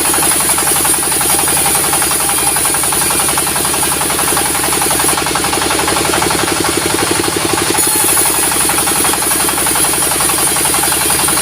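Sawmill's diesel engine running steadily with fast, even firing pulses. Above it a high hiss drops out about five seconds in and returns under three seconds later.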